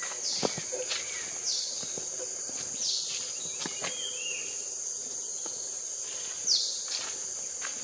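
Steady high-pitched insect drone, with a short downward-sliding bird call heard four times and a few faint clicks.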